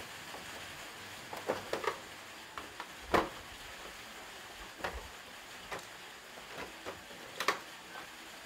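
Scattered clicks and knocks of hand work on a Honda Wave motorcycle's plastic body panels and fittings, the loudest knock about three seconds in.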